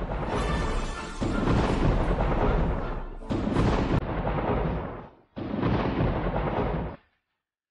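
Thunder sound effect: three long crashes of thunder one after another, strongest in the low end, stopping near the end.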